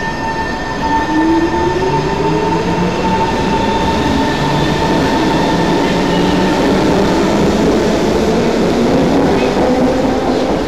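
Singapore MRT train pulling out of the station, its electric traction motors whining and rising steadily in pitch as it gathers speed. The carriages rumble past close by.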